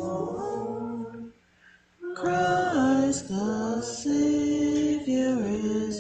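Christmas hymn being sung, slow phrases of held notes. The singing breaks off for just under a second about a second in, then goes on.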